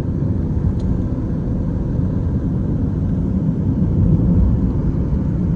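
Steady low rumble of a car on the move, road and engine noise heard from inside the cabin, with one faint click about a second in.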